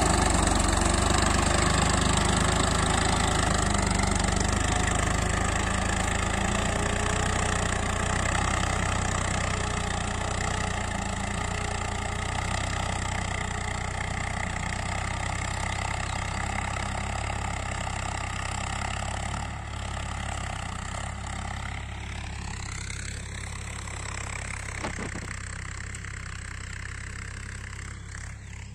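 Swaraj 963 FE tractor's three-cylinder diesel engine running steadily while pulling a tine cultivator through soil. It grows gradually fainter as the tractor moves away. The engine note bends in pitch about three-quarters of the way through and is noticeably quieter after that.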